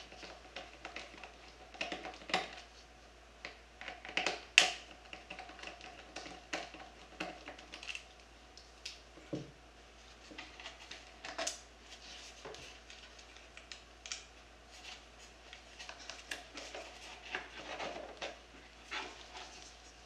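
Irregular clicks, taps and light knocks of hand work on a foam RC jet: a screwdriver turning out screws, then the plastic 80 mm electric ducted fan unit being worked loose and lifted from the fuselage.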